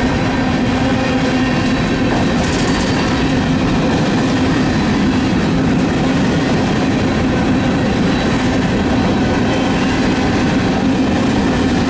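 Freight train's cars rolling past close by: a steady, loud run of steel wheels on rail with a held low hum and no break.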